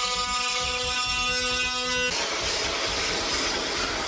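Oscillating multi-tool buzzing steadily with one even pitch as its blade cuts into the bottom of a wooden door frame, trimming it so the sticking bathroom door will close. The buzz cuts off about two seconds in, and a steady rushing noise follows.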